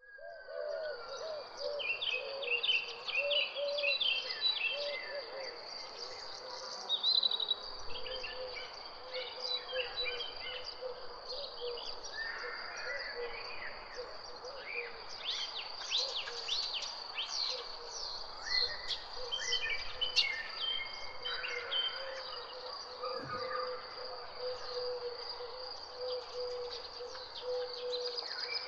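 Garden ambience: a steady high insect trill runs throughout, with many small birds chirping and calling over it in short bursts. A lower, wavering hum also runs on.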